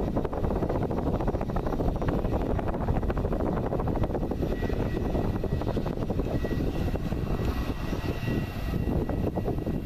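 Airbus A320 jet engines running at low thrust as the airliner taxis, a steady rushing noise with a thin high whine.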